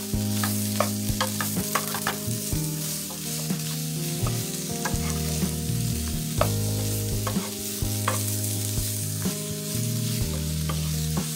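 Chopped cabbage frying and sizzling in a pan while a wooden spatula stirs and scrapes through it, with frequent short clicks of the spatula against the pan. Low sustained tones underneath shift in pitch every second or so.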